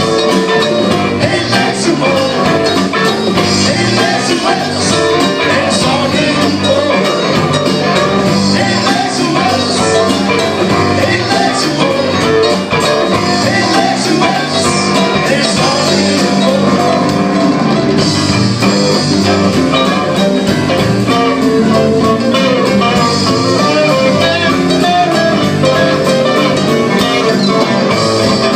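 Live band playing loud blues-rock, with guitar to the fore over drums and cymbals.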